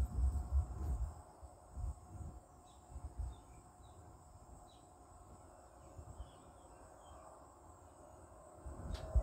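Outdoor ambience: scattered faint high bird chirps over a steady thin insect drone, with low rumbling thumps in the first few seconds.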